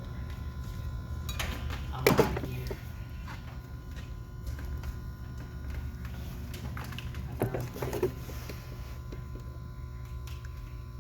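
Kaivac cleaning machine running with a steady low hum and a faint steady whine, its motor faulty. A few knocks and clicks break in, about two seconds in and again past the middle.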